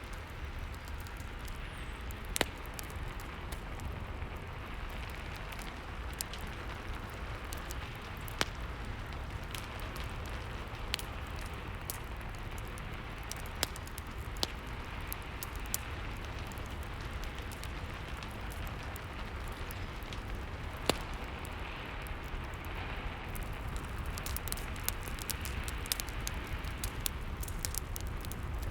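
Rain and fireplace ambience: a steady rain hiss under the crackle of a wood fire, with scattered sharp pops that come more often near the end.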